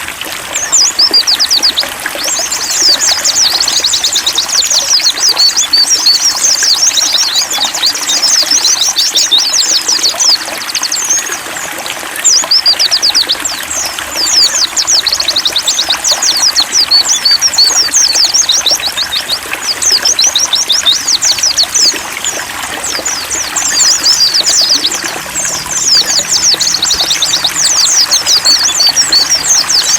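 Pleci (white-eye, Zosterops) singing long runs of rapid, high twittering with a few short pauses, over a steady trickle of running water.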